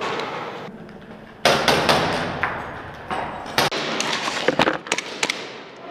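Scuffing and rustling with scattered sharp knocks and clacks, beginning suddenly about a second and a half in, echoing in a large empty hall.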